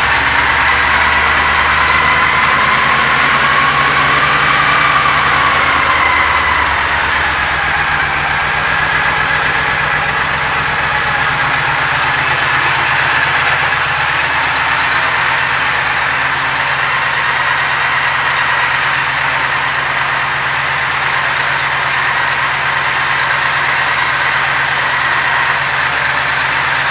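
Triumph Thunderbird parallel-twin engine idling steadily, its pitch lifting slightly a few seconds in before settling back.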